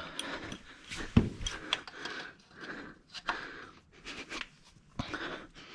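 Hand tools clicking and scraping against metal transmission parts during teardown, with two sharp knocks about a second in and about five seconds in.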